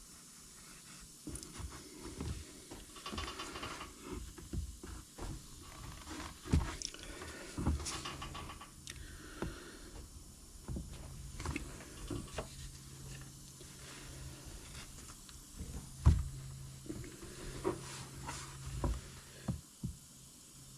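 Scattered light taps, clicks and scrapes of a soldering iron working over a plastic part, with a faint hiss. A low steady hum comes in about halfway through.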